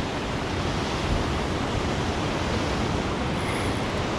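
Ocean surf washing against a rocky shore in a heavy swell: a steady roar of breaking water, with wind buffeting the microphone.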